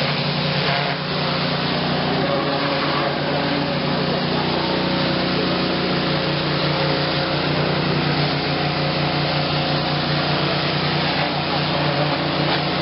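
Engine-driven pressure washer, rated 4,500 psi at 6 gallons a minute, running steadily with a constant engine hum under a dense rushing hiss.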